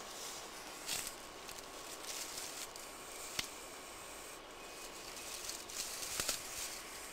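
Common European adder (Vipera berus) hissing in three short bursts, with two sharp clicks of a stick among dry twigs.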